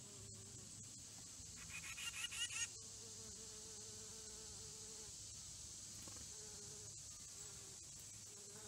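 Faint, steady high-pitched insect drone in the background, with a louder, rapidly pulsing call lasting about a second, about two seconds in.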